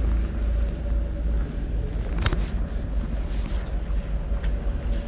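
Low rumble of wind on the microphone over a steady motor hum, with one sharp click a little past two seconds in.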